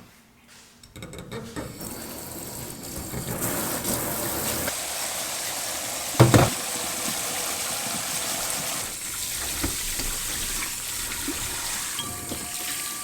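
Water running steadily, starting about a second in and growing stronger over the next few seconds, with one loud knock about halfway through.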